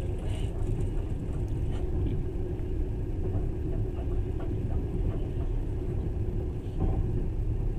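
Passenger train running at speed, heard from inside the carriage: a steady low rumble of wheels on the rails with a few faint knocks.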